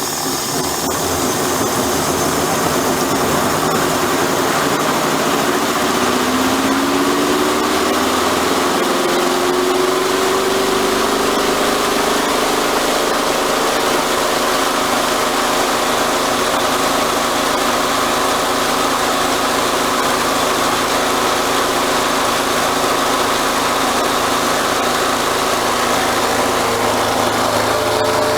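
Giantex Costway twin-tub washing machine running a rinse with the water on: a steady motor hum under a hiss of running water. A tone in the hum rises in pitch about six to twelve seconds in.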